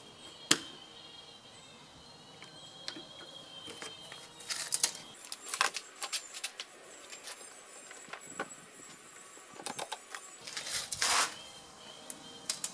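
Scattered clicks and light knocks of a bar clamp and a tape measure being handled and set against an OSB board, with a short rattle of clicks near the end.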